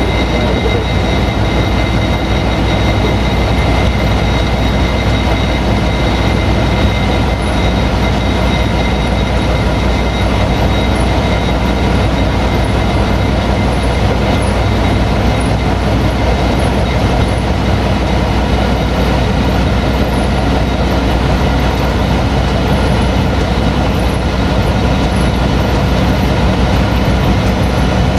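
Old Malaxa 1000 diesel railcar under way, heard from inside its driver's cab: a steady drone of the running diesel engine mixed with wheel and rail noise, unchanging throughout.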